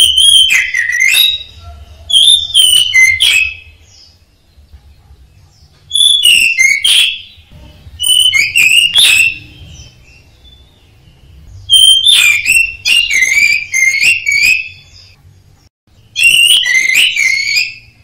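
Orange-headed thrush (anis merah) in full song: six phrases of rich whistled notes sliding up and down, separated by pauses of one to three seconds. Most phrases last a second or so; the one about twelve seconds in runs about three seconds.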